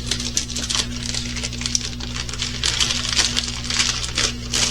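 Plastic packaging of a diamond-painting kit rustling and crinkling as it is handled, with many small irregular clicks and crackles, over a steady low hum.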